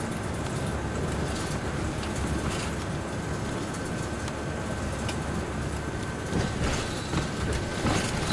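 Steady low road and engine rumble heard from inside a vehicle moving along a highway, with a faint steady high whine. A few light knocks or rattles come in the last two seconds.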